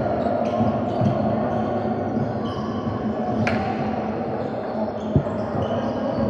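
Basketball game noise echoing in a large gym: a basketball bouncing on the hardwood court with scattered knocks, over a steady wash of court and crowd noise. A single low thud comes about five seconds in.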